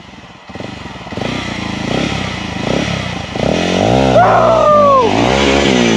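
Dirt bike engine revving up and down under load on a steep off-road section. It builds from fairly quiet and grows loud about three and a half seconds in.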